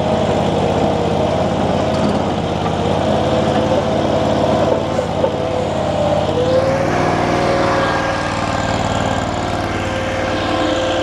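Infront YF380 mini skid steer's engine running steadily while it works dirt, with a high whine over it that drops in pitch a little past halfway.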